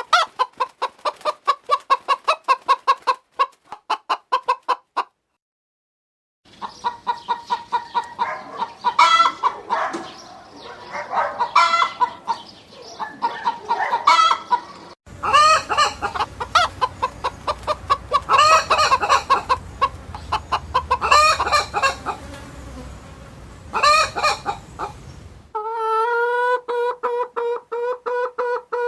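Chickens clucking in quick repeated pulses, then several birds clucking and cackling together in spliced recordings, with a short gap about five seconds in. Near the end comes one long drawn-out call.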